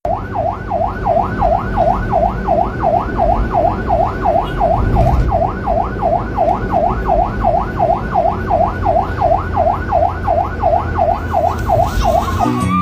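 Emergency-vehicle siren sound effect wailing rapidly up and down, about two and a half sweeps a second, over a low rumble.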